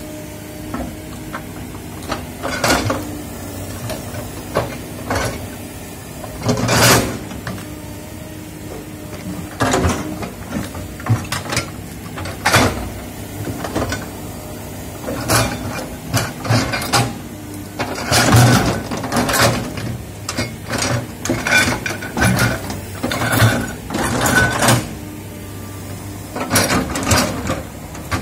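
Hydraulic crawler excavator's diesel engine running steadily while the bucket digs into soil and brush, with many irregular sharp clanks and crunches from the bucket and arm, coming thickest in the second half.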